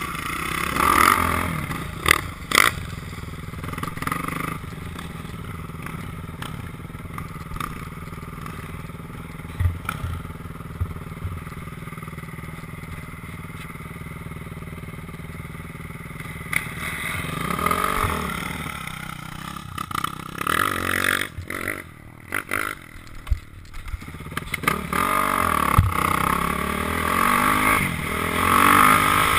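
Single-cylinder four-stroke engine of a Kawasaki KX450F dirt bike, heard from the rider's helmet camera while riding. The throttle rises and falls, easing off to a quieter stretch in the middle, then revving again and running harder near the end. Two sharp knocks come about two seconds in.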